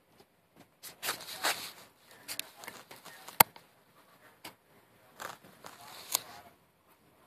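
Handling noise of a plastic cup held in the hand: irregular rustling and scraping of plastic against skin, with a sharp click about three and a half seconds in.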